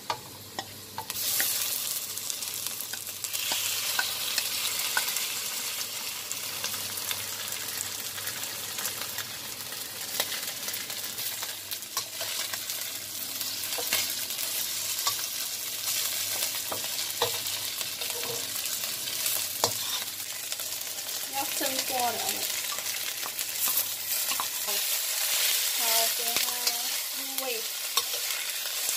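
Food sizzling in hot oil in a wok, stir-fried with a metal spatula that scrapes and clicks against the pan. The sizzle grows louder about a second in and then holds steady.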